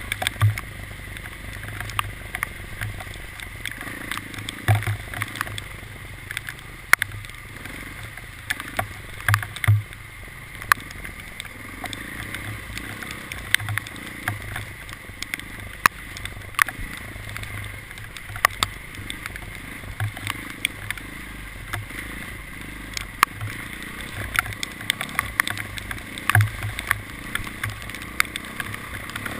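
Vehicle running with a steady low drone, overlaid by irregular sharp ticks and knocks, a few a second.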